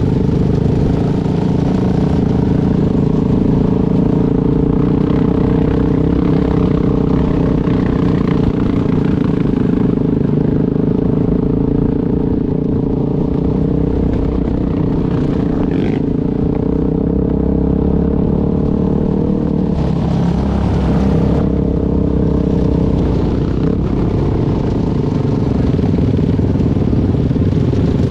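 ATV engine running steadily at cruising speed, with tyre and gravel clatter, and a brief rush of hiss about twenty seconds in.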